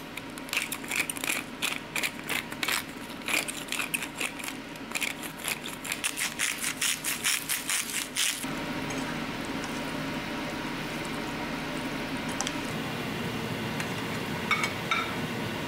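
A pepper grinder twisted in quick, even clicking strokes for about eight seconds, grinding black pepper. Then a steady hiss and hum from the gas stove, with a brief clatter near the end as chicken chunks are tipped from a plate into a frying pan.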